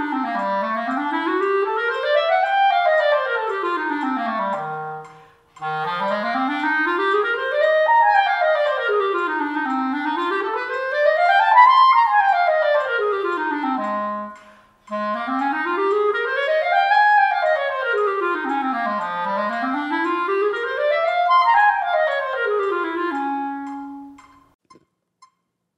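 Solo clarinet playing fast major and minor scales, running up and down more than two octaves from the low register, in three long phrases with short breaks about five and fifteen seconds in.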